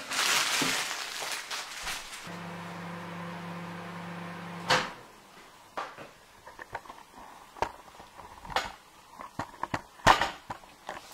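A microwave oven runs with a steady hum for a couple of seconds while it defrosts a frozen slice of bread, and stops with a sharp click. A broad rushing noise comes before the hum, and light clicks and knocks of handling follow, the loudest near the end.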